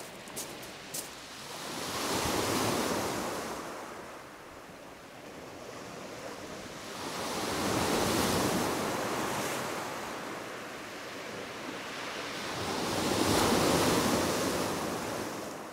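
Waves breaking and washing up a shingle beach, swelling and fading three times, about five or six seconds apart.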